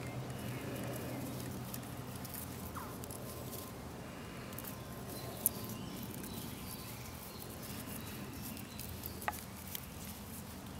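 Faint rustling and a few small sharp clicks from bramble fibres being twisted by hand into two-ply cordage, over a quiet outdoor background.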